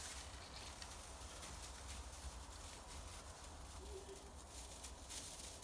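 Faint handling of small metal scrap parts from a stripped ceramic hob, a few light clicks over a steady low rumble.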